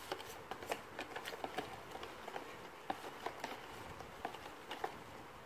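A kitchen utensil scraping and clicking against cookware, with irregular light clicks several times a second, as melted chocolate is scraped out and stirred into the ice cream mixture.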